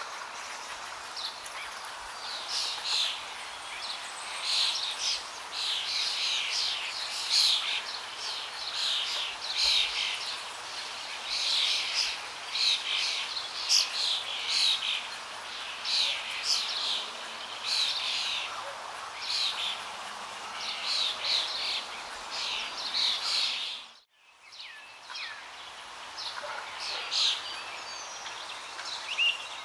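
Small birds chirping and twittering in quick runs of short calls over a steady background hiss. The sound drops out for a moment near the end.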